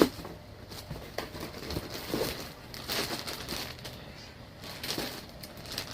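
Intermittent rustling and crinkling of gift packaging being handled and opened, with a few brief scrapes and a faint steady hum underneath.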